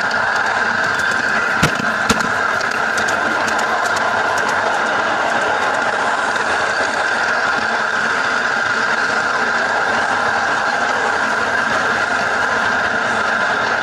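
Ride-on garden-railway locomotive running along its track, heard from on board: a steady running noise with a constant high whine. Two sharp clicks come about 1.5 and 2 seconds in.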